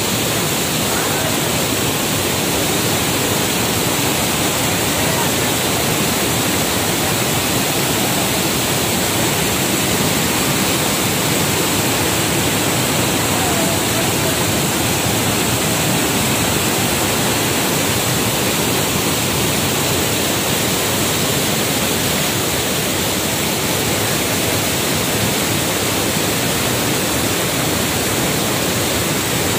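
Waterfall: water pouring down a rock face and over boulders, a steady, unbroken rush.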